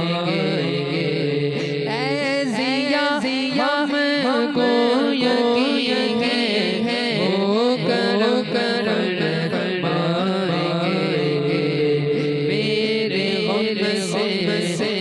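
A voice singing a manqabat, an Urdu devotional praise poem, in long gliding melismatic phrases over a steady held drone.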